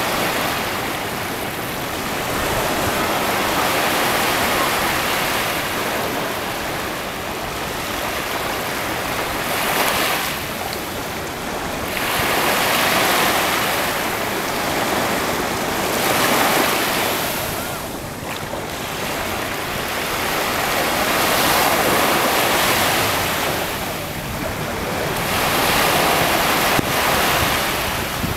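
Pacific Ocean surf breaking on a beach, a steady wash of waves that swells and ebbs every few seconds.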